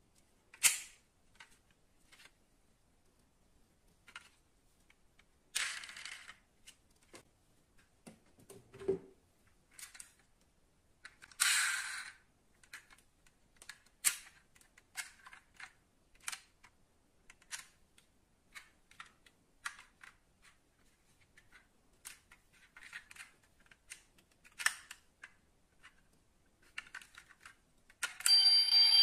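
Die-cast model cars handled in the hands: small clicks and snaps as their metal doors, hood and hatch are opened and shut, with a few brief scrapes and one low knock. Near the end the model SUV's built-in sound unit starts a steady electronic tone.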